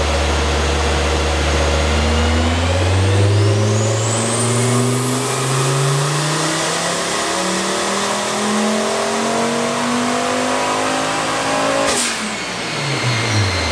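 Turbocharged VW 07K 2.5-litre five-cylinder (Garrett G25-660 turbo) in a Porsche 944 making a wide-open-throttle dyno pull with 5 degrees of variable valve timing: the engine note climbs steadily for about twelve seconds with a high whine rising alongside it. Near the end the throttle closes with a short sharp burst and the revs fall away.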